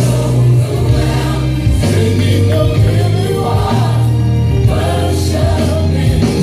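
Gospel choir singing a praise song with band accompaniment, over deep sustained bass notes.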